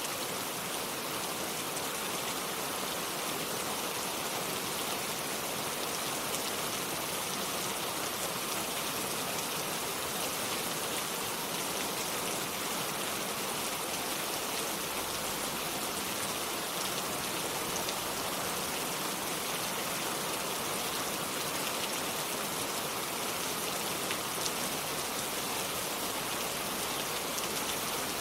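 Steady rain without thunder: an even hiss of falling rain with many fine drop ticks on surfaces.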